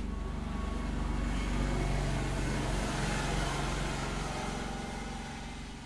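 A motor vehicle passing: its noise swells to a peak a couple of seconds in, then fades, over a steady low engine hum.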